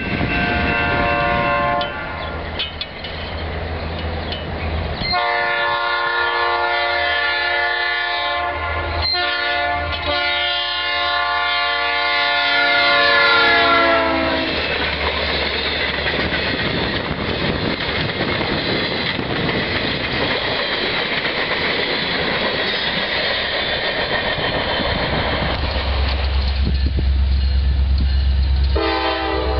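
A diesel freight locomotive's air horn sounds a long blast from about five seconds in and drops in pitch as the Conrail-blue locomotive passes a grade crossing. The rumble of the locomotive and railcars rolling over the rails follows. Near the end a second locomotive horn starts, from an approaching Norfolk Southern SD70M.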